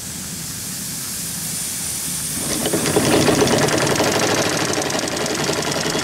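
Live-steam scale-model logging donkey: steam hissing as the throttle is opened, then about two and a half seconds in its two small bronze steam engines start running with a rapid, even beat. The engines run light, with the spool drums not yet clutched in.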